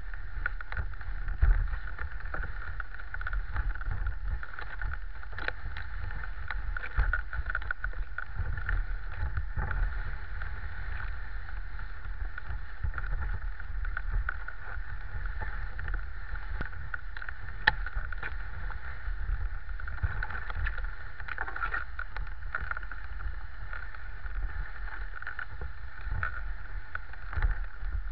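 Dog sled gliding along a packed snow trail: the runners give a steady hiss and rumble on the snow, with frequent small clicks and knocks from the sled.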